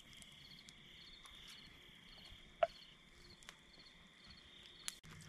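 Faint crickets chirping at night, a steady high trill with short chirps repeating at even spacing, and a single short click about two and a half seconds in.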